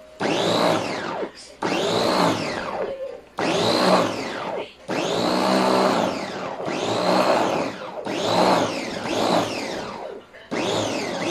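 Electric bowl chopper (meat grinder) with stainless steel blades, run in repeated short pulses to chop food in the bowl. In each burst the motor whirs up in pitch and winds down again.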